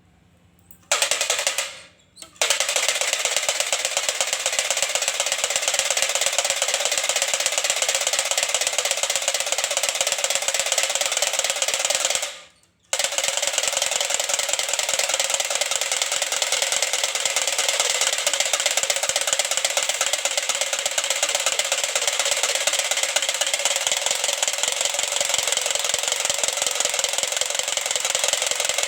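A baby's revolving toy rattle drum being spun, giving a fast, continuous clatter of clicks. It stops briefly twice, near the start and about halfway through, then carries on.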